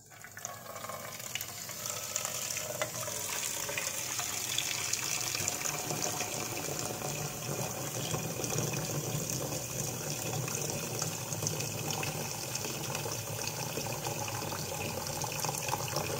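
Tap water pouring into a stainless steel pot of raw eggs in a sink, a steady splashing stream that builds over the first couple of seconds and then holds level as the pot fills to cover the eggs.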